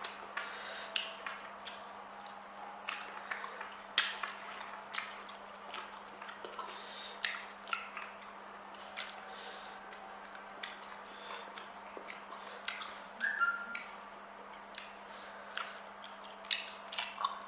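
A person eating at close range: wet chewing and mouth smacks coming as scattered, irregular clicks and squishes. A steady low hum lies underneath.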